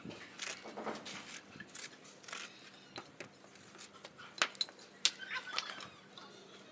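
Clay roof tiles and a mason's trowel clinking, scraping and knocking as tiles are set in mortar, in scattered short sharp strokes, the loudest two knocks about four and five seconds in.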